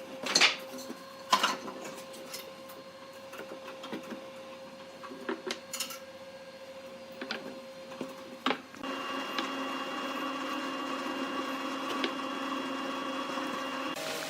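A few sharp knocks and taps over a faint steady hum, then a small electric motor starts about nine seconds in and runs steadily, typical of a workshop power tool.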